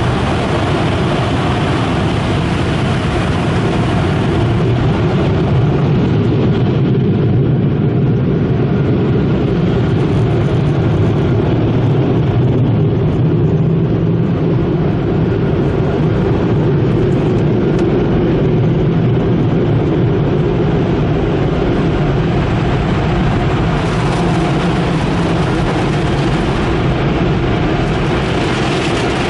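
Automatic tunnel car wash heard from inside the car: water spraying on the windshield, easing after about five seconds, over a steady low rumble of the wash machinery.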